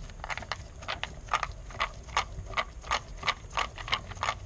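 Ratcheting driver with a T20 Torx bit clicking in quick, uneven clicks, about two to three a second, as it backs out a screw holding an idle air control valve.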